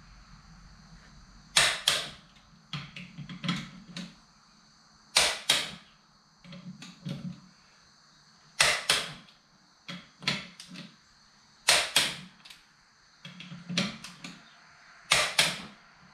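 Click-type torque wrench set to 90 ft-lb tightening a tractor's rear wheel bolts: five sharp double clicks about three and a half seconds apart as each bolt reaches torque, with softer clicks in between.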